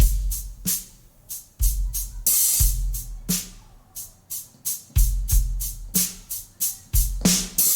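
A pop drum kit built from round-robin samples, played as a groove: kick drum thumps, snare and hi-hat strokes, with a cymbal crash about two seconds in. The round-robin samples make repeated hits vary in dynamics rather than repeat identically.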